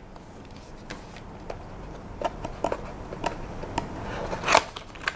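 Cardboard packaging being handled: a few light taps and rustles that pick up about two seconds in, with a louder rustle near the end.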